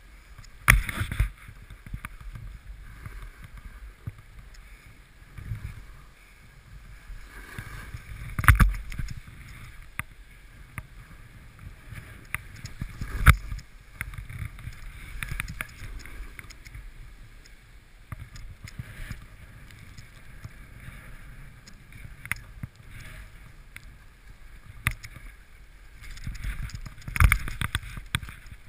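Snowboard sliding through deep powder snow, a steady rushing noise, with a few sharp knocks and thumps, the loudest about a second in, near the middle, around halfway and near the end.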